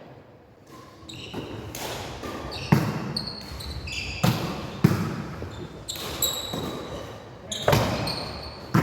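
Volleyballs being hit and passed back and forth in a pair drill: about five sharp slaps of the ball at irregular intervals, echoing in a gym hall, with short high squeaks of shoes on the court floor between them.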